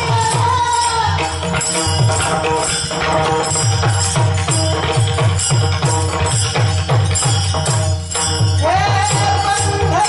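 Marathi Varkari bhajan music: a quick, steady drum beat under a held, gliding melody line, with jingling cymbals on the beat.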